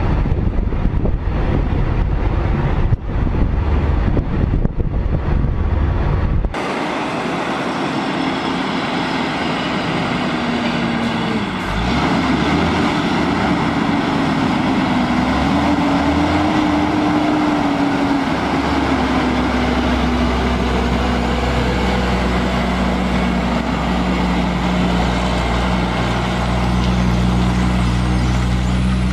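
Wind buffeting the microphone over a low rumble. About six seconds in this cuts to a loaded log truck's diesel engine running as the rig drives and turns, its pitch rising and falling, then settling into a steady low drone about halfway through.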